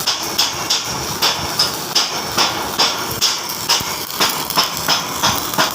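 Metal being hammered in a steady rhythm, about three sharp strikes a second.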